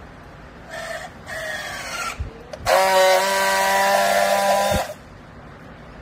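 Handheld battery-powered strapping tool working a plastic strap around a bale: two short motor whirs as it pulls the strap tight, the second sliding down in pitch, then a loud steady buzz for about two seconds as it friction-welds the strap seal. The buzz stops abruptly with a knock.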